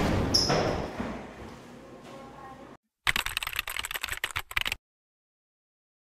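A loud rush of noise that fades away over about two and a half seconds. About three seconds in comes a quick run of typing clicks lasting under two seconds, then dead silence.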